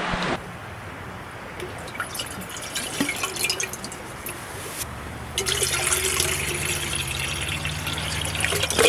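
Water poured from a plastic bottle into an enamel kettle: trickling and dripping at first, then a steadier, louder pour from about halfway in, with a small clunk near the end.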